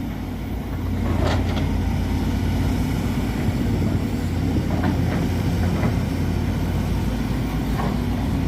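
Hydraulic excavator diesel engine running steadily while digging, a continuous low drone.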